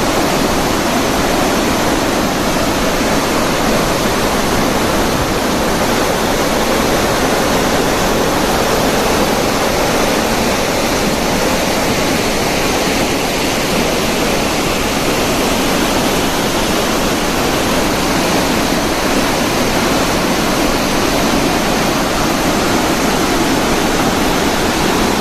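Water pouring steadily and loudly through a dam's spillway with all of its gates open in a full flood release, a constant rushing roar with no let-up.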